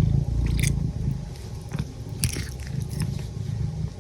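Domestic cat purring close up, a steady low rumble that fades near the end, with a few short clicks over it.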